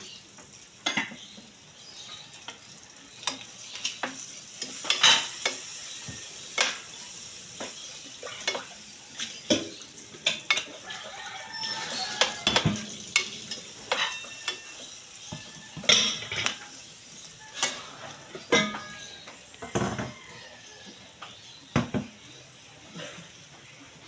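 Pork sizzling in a frying pan while a metal spatula stirs it, the spatula knocking and scraping against the pan about once a second over a steady hiss of frying.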